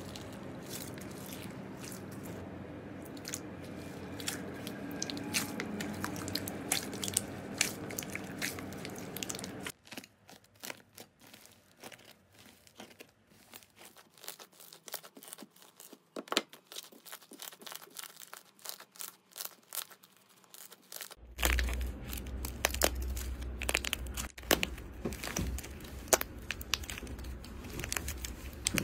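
Slime being handled by hand, with three textures in turn. First a steady, dense crackling rustle as a hand pushes through clear gel beads and plastic film in blue slime. About a third of the way in it turns quieter, with scattered sticky clicks and pops as a soft orange slime is stirred. About two-thirds in come loud crackling crunches as a hardened pink clay coating on blue slime is squeezed and breaks up.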